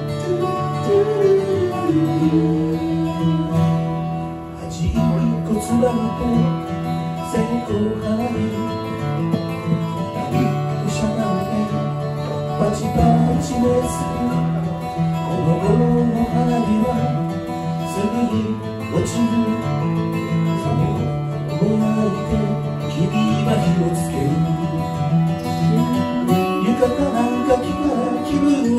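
Acoustic guitar strummed and picked, playing a folk song accompaniment.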